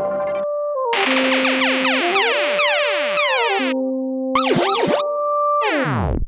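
Dubstep synthesizer music built from app-triggered loops: held synth notes with repeated falling pitch sweeps, a wobbling glide near the middle, and a final sweep that drops in pitch and cuts out at the end.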